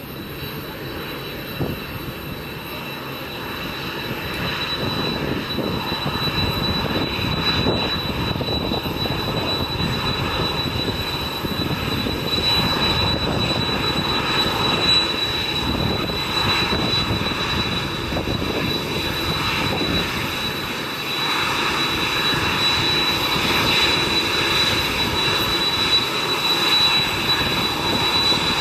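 Boeing 767-300ER's twin turbofan engines running at taxi power: a steady high whine over a jet rumble. The sound grows louder over the first dozen seconds, dips briefly a little past twenty seconds, then holds.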